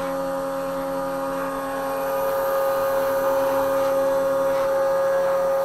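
Spindle motor of a homemade CNC router running at speed with a steady whine, its small bit working an MDF sheet on the machine's first test cut. It grows a little louder and rougher about two seconds in.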